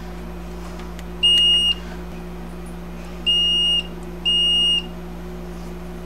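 Continuity beeper of an Amprobe 33XR-A multimeter giving three high beeps of about half a second each: one about a second in, then two close together around three and four seconds in. Each beep signals continuity as the probes find connected terminals on a small tactile pushbutton switch. A steady low hum runs underneath.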